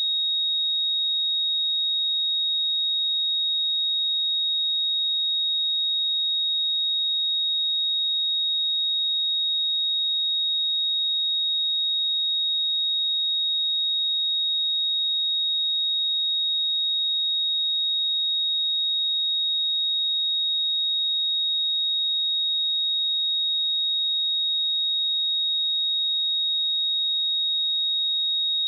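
A pure 3761 Hz sine-wave test tone, a single steady high-pitched note held at constant level.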